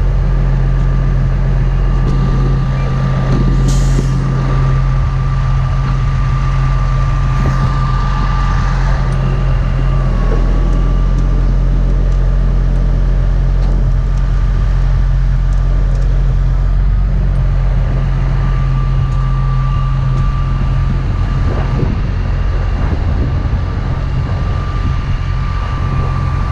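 Heavy tow truck's diesel engine running steadily, with a thin steady high whine over it that dips briefly about ten seconds in.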